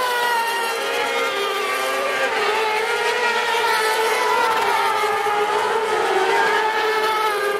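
Several kartcross buggies' motorcycle engines running hard together through a dirt corner, their overlapping high revving pitches wavering up and down.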